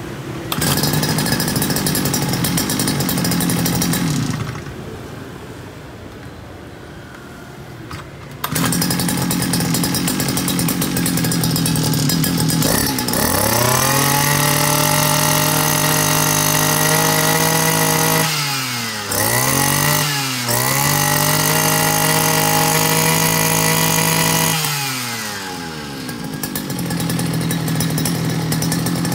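Robin NB50 brush-cutter two-stroke engine running on test after repair while its carburettor is adjusted. It drops to a low idle for a few seconds, comes back up, then revs high and holds there with two quick dips before falling back to a lower speed near the end.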